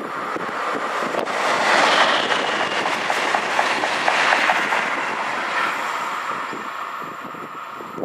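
Passenger train passing at speed: the rush of wheels on rail swells to a peak about two seconds in, with a quick run of rhythmic wheel clicks in the middle, then fades as the train draws away.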